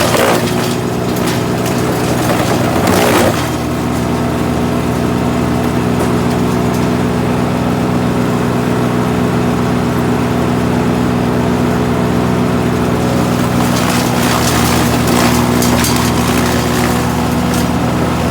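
GreenMech Arborist 150 wood chipper running steadily at working speed, with rougher, noisier stretches about three seconds in and again for a few seconds near the end, as branches are fed through and chipped.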